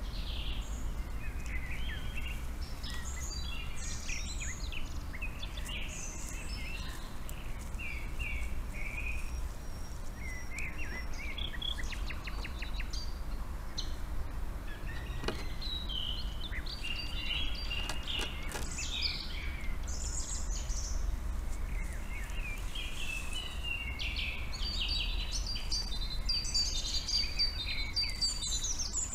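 Several songbirds chirping and trilling at dusk, short calls coming one after another, over a steady low rumble.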